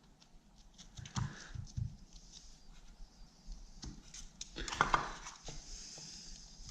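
Wet, freshly pasted lining paper being peeled back and handled on the wall: soft rustling with scattered light clicks and taps, the busiest and loudest stretch just under five seconds in.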